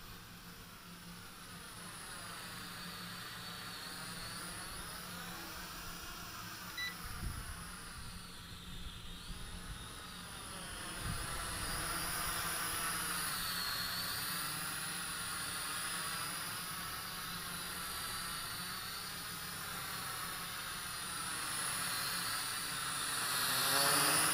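JJRC H8D quadcopter's four motors and propellers buzzing with a steady whine as it hovers and drifts overhead, the tone wavering up and down as it moves. A few low rumbles of wind on the microphone come about seven to eleven seconds in, and the buzz grows louder near the end as the drone comes in close.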